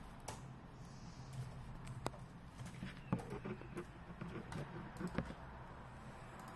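Handling noise from a phone camera being moved and set down on a glass table: a few sharp clicks and light knocks with scattered rustling between them, mostly in the middle, over a low steady hum.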